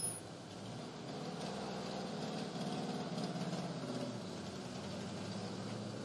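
A vehicle engine idling steadily, with a short click right at the start.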